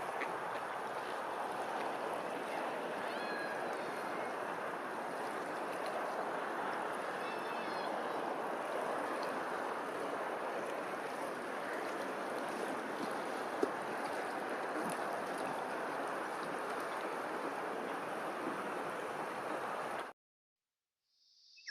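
Steady rush of running water with a few faint bird chirps over it. It cuts off suddenly near the end.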